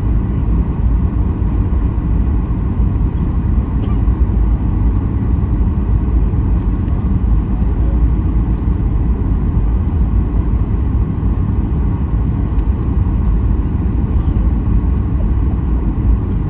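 Steady low rumble inside the cabin of a Boeing 737 MAX 8 airliner in flight: the noise of its jet engines and the airflow round the fuselage, running evenly without change.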